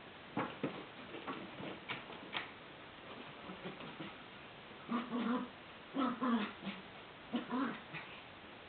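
A small dog and a raccoon play-fighting. First there are a few sharp taps, then short pitched animal vocal sounds come in three clusters over the second half.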